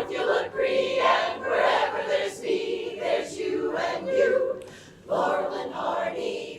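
An a cappella chorus singing, phrase after phrase, with a brief break about five seconds in.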